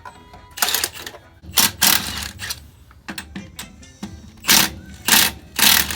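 A hand ratchet wrench being worked on suspension bolts: six short, loud bursts of ratcheting, spaced unevenly.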